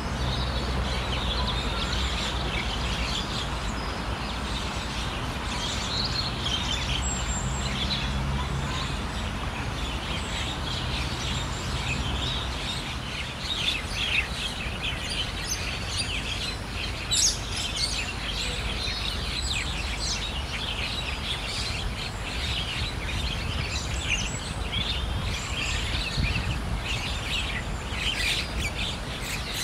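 Many small birds chirping and calling in quick, overlapping short notes, over a low steady rumble that fades out about twelve seconds in.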